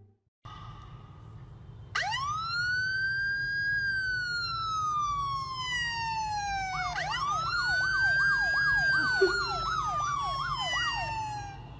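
Siren sound played from a smartphone speaker: about two seconds in, a long wail rises and then slowly falls, then a second rise breaks into a fast up-and-down yelp of about three warbles a second before fading out.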